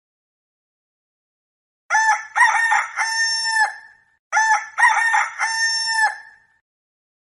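Rooster crowing twice, two cock-a-doodle-doo calls of about two seconds each, one straight after the other.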